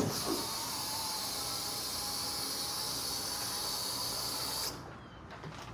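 Pickup truck's hydraulic lift gate lowering: a click, then a steady hiss with a faint whine that cuts off suddenly after about four and a half seconds, when the platform reaches the ground.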